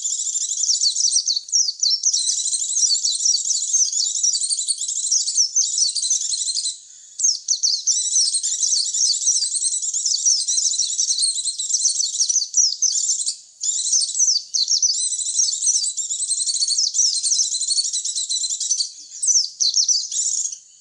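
White-eyes (pleci) singing: rapid, high twittering chatter in long runs, broken by brief pauses about a third of the way in, about two-thirds in and near the end.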